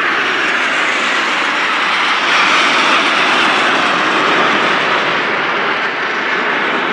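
Several Aermacchi MB-339 jet trainers flying low past, their Rolls-Royce Viper turbojets making a loud, steady jet roar.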